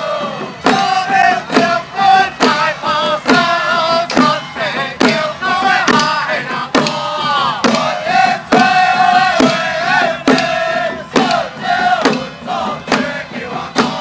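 A crowd of men shouting and chanting together, with sharp percussive strikes beating about twice a second throughout.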